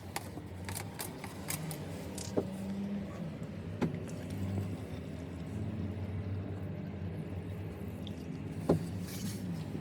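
Scattered clicks and knocks from handling a STIHL MS 170 chainsaw's fuel cap and a fuel can while refuelling, over a low steady hum.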